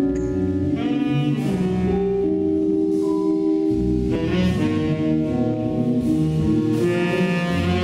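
Live small jazz ensemble of saxophones, piano, electric bass and drums playing. The horns hold long notes that change pitch every second or so over the rhythm section.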